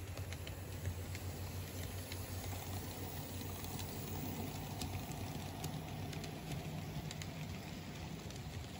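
Kato N-scale Southern Pacific C44-9W locomotive and its freight cars running past on the track: a low steady motor hum with light clicking of wheels on the rails.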